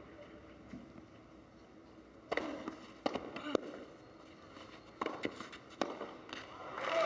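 Tennis ball struck with rackets in a rally on a clay court: a series of sharp hits, the first, the serve, about two seconds in. Crowd applause swells at the very end as the point is won.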